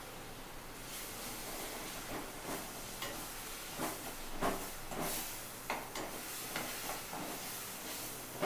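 Tomato and spice masala sizzling in a stainless steel kadai while a steel slotted spoon stirs it, scraping and clinking against the pan about once a second.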